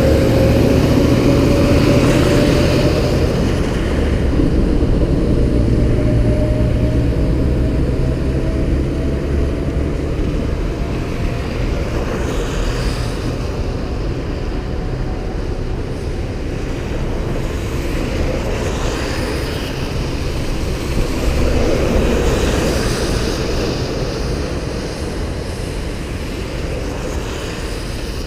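Steady road traffic noise, with one engine's tone rising slowly in pitch over the first ten seconds or so.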